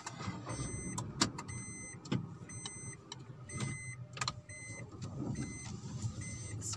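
A Honda car's engine idling, heard from inside the cabin, while a dashboard warning chime beeps about once a second. A few sharp clicks come from the controls as the handbrake is released and the automatic gear lever is moved into D, the loudest click a little over a second in.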